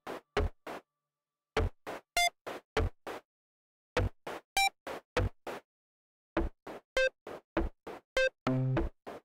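Electronic sound-design track of short, sharp synthetic clicks and beeps, about three a second, coming in groups separated by silent gaps of about a second. A longer buzzy synth tone sounds near the end.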